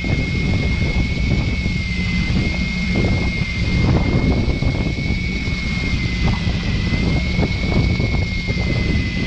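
Fishing boat's engine running steadily, a low rumble with a thin high whine over it, with water washing below.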